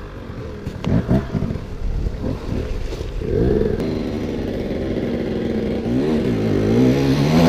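Gas Gas EC 250 two-stroke enduro motorcycle engine revving up and down under the throttle, its pitch swinging repeatedly in the second half. A few sharp knocks and clatter about a second in.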